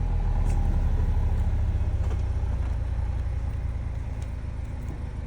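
A 2023 Chevrolet Camaro RS engine on its stock exhaust, idling with a steady low rumble that gradually quiets as it settles.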